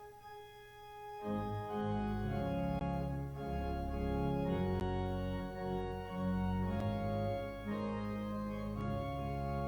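Organ playing slow, sustained chords that change every second or so, after a brief fade near the start.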